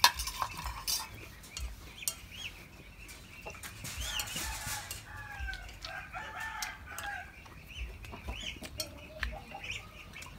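Farmyard fowl: a rooster crowing in the middle, with hens clucking and small birds chirping. A sharp clink right at the start and light clicks of spoons on plates run alongside.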